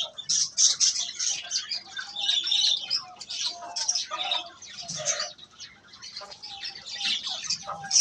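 Many small cage birds chirping and chattering at once, a dense run of short overlapping high chirps with occasional brief whistled notes.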